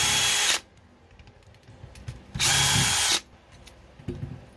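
Cordless brushless drill/driver backing out the screws of an airsoft gearbox shell: a short run that stops about half a second in, then a second run of under a second about two and a half seconds in. A few light clicks and knocks of metal parts near the end.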